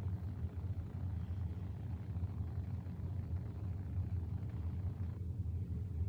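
Steady low rumble of background noise, even throughout, with no events standing out.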